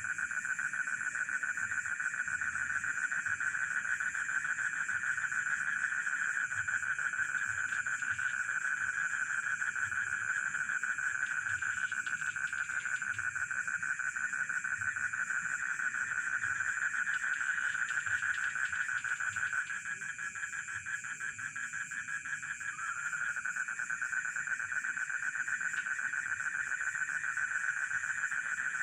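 Chorus of frogs and crickets calling together in a rice field: a dense, rapidly pulsing trill with steady high insect chirring above it. The main trill drops out for about three seconds about two-thirds of the way through, then comes back.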